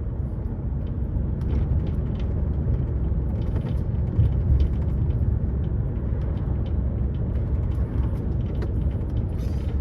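Inside a lorry cab on the move: the steady low drone of the engine and road rumble, with faint light ticks and rattles now and then.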